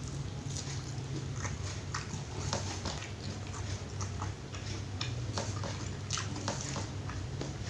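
A person chewing food close to the microphone, with many irregular short clicks and smacks of the mouth, over a steady low hum.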